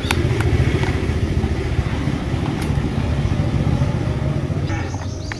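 A steady low engine rumble with a fine rapid flutter, like a motor vehicle running nearby. Over it come a few faint clicks as a small screwdriver turns a screw into a plastic toy's wheel mount.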